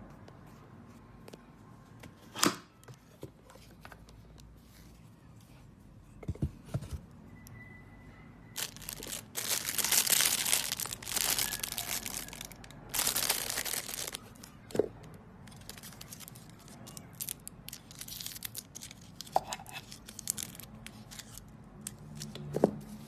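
Clear plastic protective film being peeled off and crinkled in the hand, a loud rustling, tearing sound lasting several seconds in the middle, with lighter crinkles later. Scattered sharp clicks and knocks from handling the case and parts, the loudest about two seconds in and another near the end.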